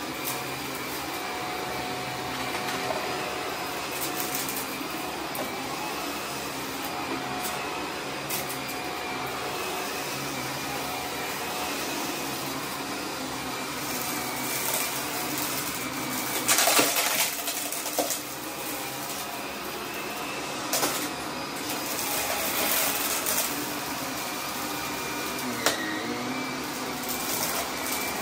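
Vacuum cleaner running steadily over carpet with a faint whine. Scattered crackles and rattles come as it sucks up confetti: the loudest burst is about two thirds of the way through, and there is a sharp click near the end.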